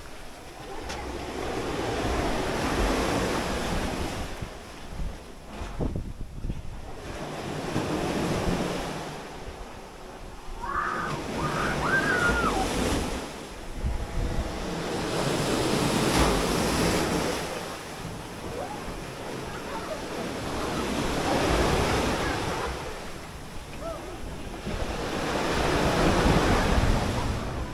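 Small waves breaking and washing up the sand close by, the surf swelling and falling back every few seconds.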